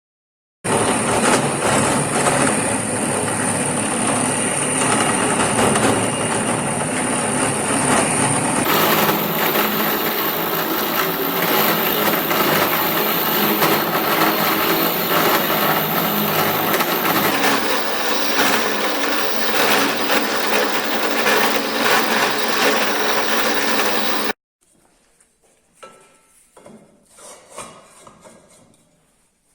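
Power tools running loudly in workshop work. The sound changes abruptly twice and then cuts off suddenly, after which there are a few faint knocks and handling sounds.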